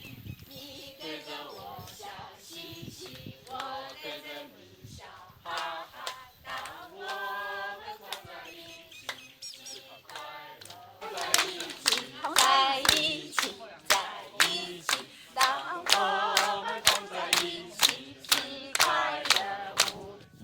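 A group of people singing together, with loud rhythmic hand clapping in time joining in about halfway through.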